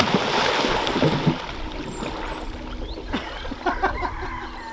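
Water splashing as a small outrigger canoe capsizes and two people fall into a shallow pond, loudest in the first second, then settling into quieter sloshing as they wade around the overturned boat.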